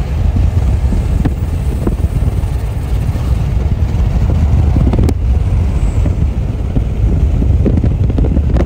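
Steady low rumble of road and wind noise from a car moving at highway speed, heard from inside the car.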